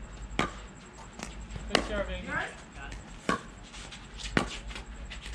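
Pickleball rally: a hard plastic pickleball struck back and forth, five sharp pocks at uneven intervals from paddle hits and bounces.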